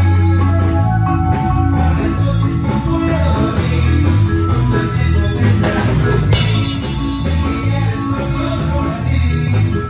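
Live Latin dance band playing loud amplified music, with a strong, steady bass line under the melody.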